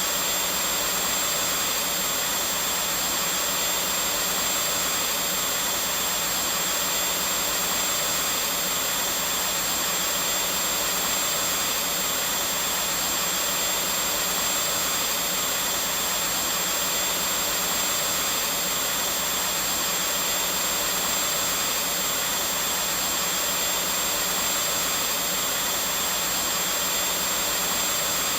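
Vacuum cleaner running continuously at a steady pitch and level: a smooth, high airy rush of its motor and airflow, with a faint low hum underneath.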